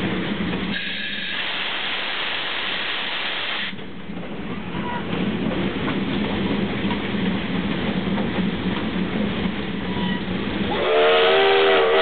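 Cab noise of a 2-6-2 steam locomotive, No. 1077: a steady hiss of steam with a low hum. About eleven seconds in, the locomotive's steam whistle sounds loudly as a chord of several notes and holds.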